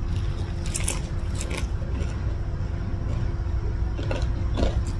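Close-miked chewing of a mouthful of nasi lemak rice eaten by hand, with a few sharp wet mouth clicks. A low steady hum runs underneath.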